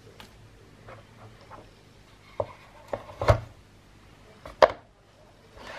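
A few sharp knocks and clicks from objects being handled on a hard surface, the loudest about three seconds in and another a little over a second later.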